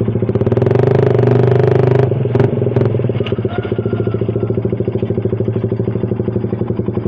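Suzuki Satria FU's 150 cc single-cylinder engine running through an aftermarket DOS muffler exhaust. It is held at slightly raised revs for the first two seconds, then drops back to a steady, pulsing idle.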